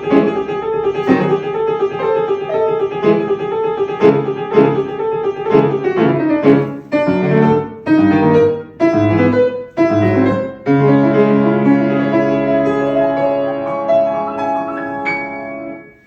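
Piano playing a piece, a run of quickly struck notes, then settling on a held chord that rings on. A last high note is added before the sound dies away at the end.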